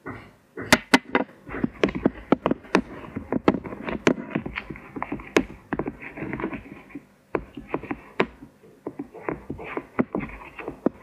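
Spoon clacking and scraping against the sides of a plastic bowl as flour and water are stirred quickly into a dough: fast, irregular knocks, several a second, with a short pause about seven seconds in.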